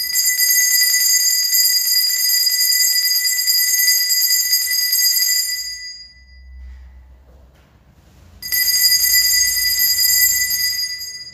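Altar bells shaken at the elevation of the consecrated host: a bright, steady jingling ring of about six seconds that stops, then a second ring of about three seconds.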